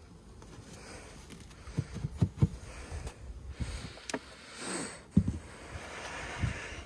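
Scattered light knocks and rustling from a beehive's parts being handled.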